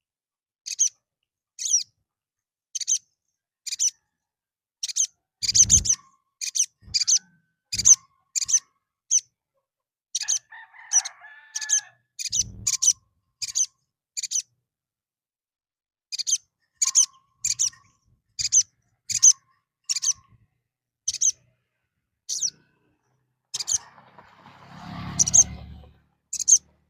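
Sogon (sogok ontong) bird calling in a long series of short, sharp, high-pitched notes, about one a second, its loud 'gacor' calling in answer to another bird's call. A few dull thumps come in between, and near the end there is a scratchy rustling.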